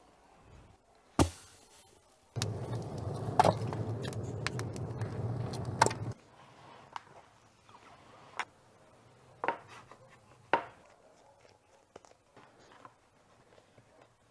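Hands working bread dough and its plastic cover: scattered sharp taps and knocks, with a few seconds of steady rustling noise early in the second quarter.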